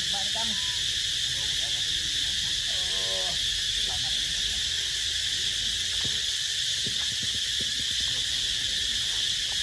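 A steady high insect drone, with a short whimpering call from a macaque right at the start and another about three seconds in. From about six seconds on there are scattered crackles of dry leaves.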